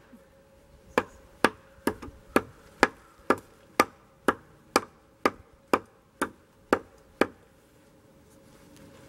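Carriage bolts being driven into a wooden post by striking their heads with a scrap of 2x4 lumber used as a makeshift mallet: a steady run of about fourteen sharp wooden knocks, about two a second, which stops about seven seconds in.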